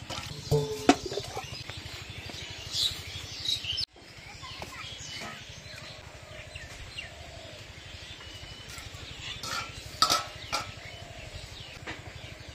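Steel bowls and plates clinking and ringing a few times, loudest near the start and again about ten seconds in, with birds chirping in the background.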